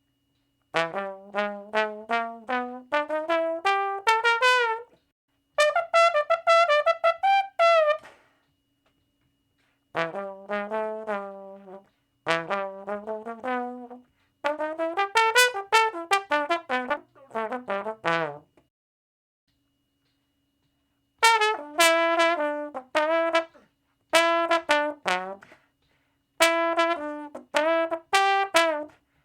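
A solo brass instrument playing phrases of quick separate notes, several runs climbing in pitch, with short pauses between phrases.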